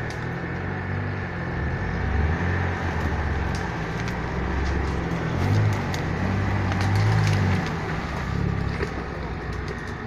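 Off-road 4x4 engine running under varying load, rising in strength for a few seconds at a time as it is worked, with scattered sharp cracks of twigs and branches breaking over it.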